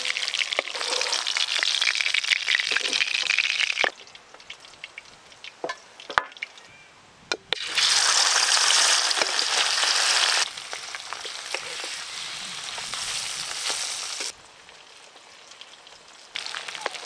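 Hilsa fish pieces sizzling in hot oil in a wok as they are lightly fried. The sizzle comes in loud spells broken by quieter gaps with a few sharp clicks.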